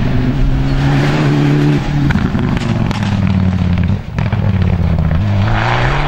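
Rally car engine running hard at high revs. Its pitch holds, then drops with a gear change about two seconds in and again about four seconds in, with a brief dip in level, then climbs as the car accelerates.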